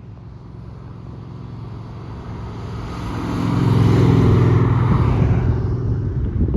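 Holden 5-litre V8 car engine running, growing steadily louder to a peak around four seconds in, then cut off suddenly near the end.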